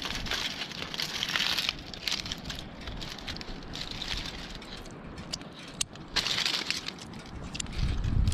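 Aluminium foil crinkling and rustling in irregular bursts as it is handled and peeled open from around a whole smoked trout.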